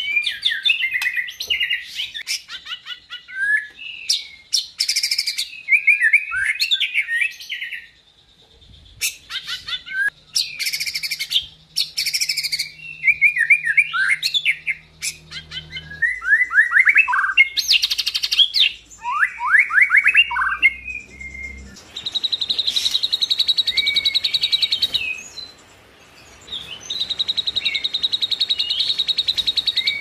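White-rumped shama (murai batu) singing a varied song of quick whistled phrases whose notes slide up and down. Near the end come two long rapid trills of about three seconds each.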